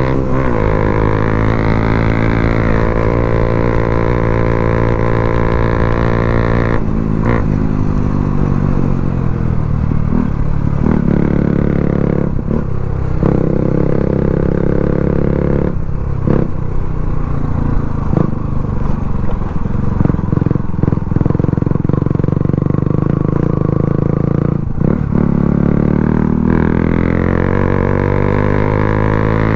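Motorcycle with an aftermarket Akrapovic exhaust running at speed, holding a steady note for the first several seconds, then dropping and picking up revs several times through gear changes, with a few sharp cracks in between. The revs climb again near the end.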